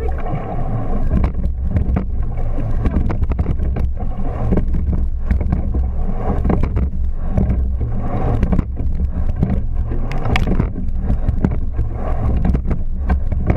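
Racing rowing shell under way, heard from a camera mounted on the boat: a steady rumble of wind on the microphone and rushing water, with repeated knocks from the oars and rigging as the crew rows.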